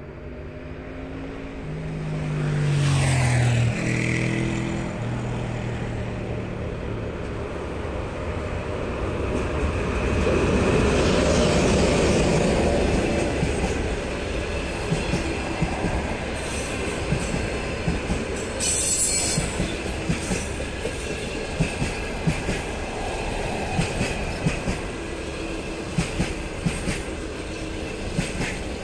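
EP1M AC electric locomotive passing at speed, a stack of tones dropping in pitch as it goes by in the first few seconds. A long string of passenger coaches follows, rolling past with steady rail noise and regular wheel clicks over the rail joints.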